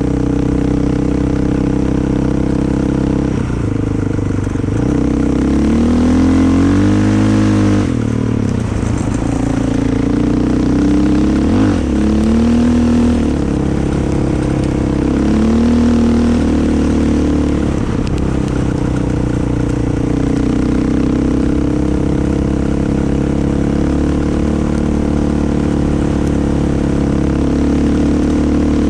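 Off-road vehicle engine running under way, its pitch rising and falling again and again as the throttle is opened and closed.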